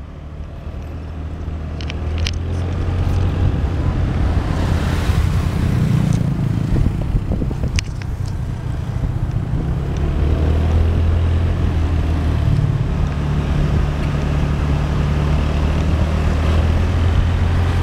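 Motorbike engine running on the move, picking up speed over the first few seconds and then holding steady, with wind rushing over the microphone and road noise.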